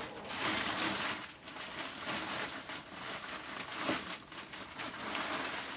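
Wood fire in a mud stove crackling and hissing softly under a pot of water, with irregular small crackles and rustles.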